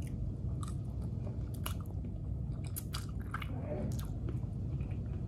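A person chewing a mouthful of fried noodles, with short wet clicks and smacks of the mouth and a few light clicks of plastic cutlery against a plastic food box, over a steady low hum.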